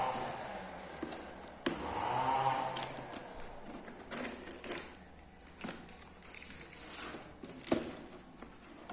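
Irregular clicks, taps and rustles of a headset's packaging being handled. A sharp click comes about one and a half seconds in, and another near the end.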